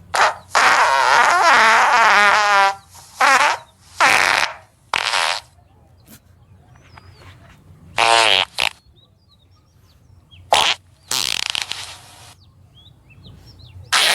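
A string of about eight fart sounds of different lengths, some short and some drawn out. The longest lasts about two seconds with a wavering, buzzing pitch, and there is a pause of a couple of seconds near the middle.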